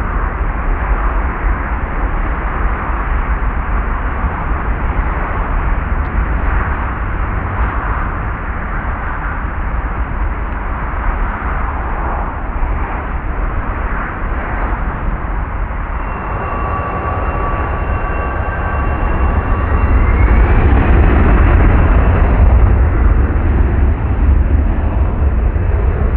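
CFM56 turbofan jet airliner engines, a Boeing 737-800's and then an Airbus A320's, running close by with a loud rushing roar and a deep rumble. About two-thirds through, steady whining tones come in, one whine rises in pitch, and the noise grows louder.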